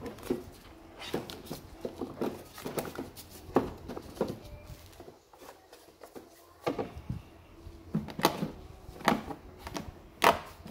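Light plastic clicks and knocks as a new panel air filter is seated in a Skoda Fabia 1.2's plastic airbox and the airbox lid is set back down onto it. There is a brief quiet spell about halfway through, and the sharpest knocks come in the last few seconds as the lid goes on.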